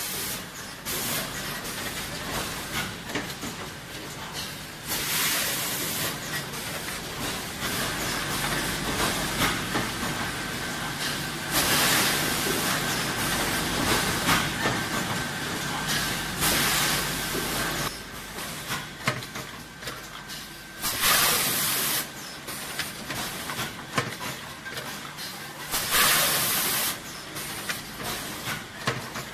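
PET bottle stretch blow-moulding machine running. About every five seconds there is a loud hiss of compressed air vented after each blowing cycle, lasting about a second, over the steady noise of the machinery.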